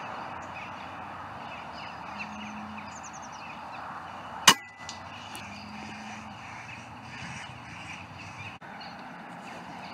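A single shot from a Daystate Delta Wolf PCP air rifle about four and a half seconds in: one sharp crack with a brief ringing tail. The shot drops a corvid with a heart and lung hit.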